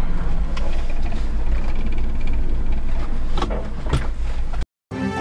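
Daihatsu Hijet S83P mini truck's three-cylinder engine idling steadily, heard from inside the cab, freshly running after a clutch replacement. Two short knocks come near the end, then the sound cuts off abruptly and music begins.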